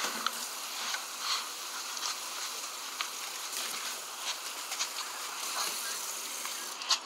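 Steady outdoor hiss with scattered light clicks and rustles from a phone being handled.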